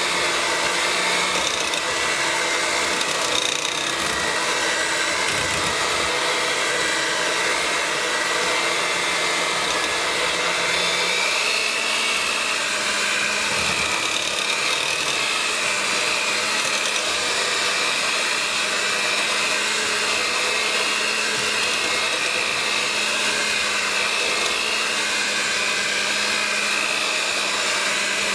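Electric hand mixer running steadily, its beaters whipping thick cream soap paste in a slow-cooker crock. The motor whine shifts slightly in pitch about a dozen seconds in.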